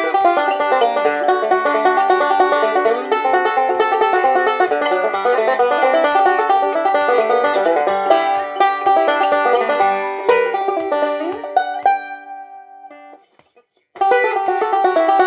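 2006 walnut Nechville Phantom five-string banjo with a tunneled fifth string, picked in rapid runs of notes. About twelve seconds in the playing stops, the last notes ring out and fade to silence, and the picking starts again a second later.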